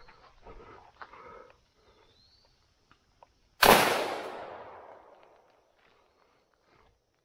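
A single 12-gauge shotgun shot about three and a half seconds in, echoing through the woods and dying away over about two seconds. Before it, footsteps crunch in dry leaves.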